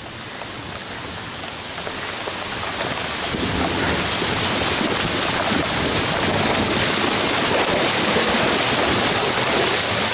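Heavy rain pouring down, a steady hiss that swells over the first few seconds and then holds, with drops spattering on the helmet camera.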